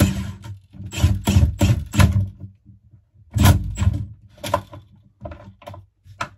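Milwaukee 12-volt cordless impact driver hammering on the screws of a two-stroke engine's fan housing, in several rattling bursts with short pauses between them, the later bursts briefer.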